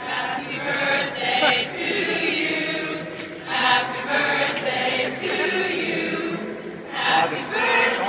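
Choir of girls' voices singing a cappella.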